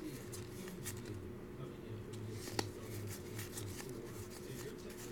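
Stack of trading cards handled and flipped through by hand: soft slides and faint ticks of card against card, with one sharper click about two and a half seconds in, over a steady low hum.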